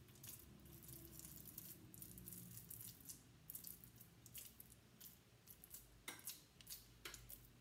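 Faint scattered soft clicks and rustles of hands handling the loaf mixture and a spoon at the counter, a little louder twice near the end.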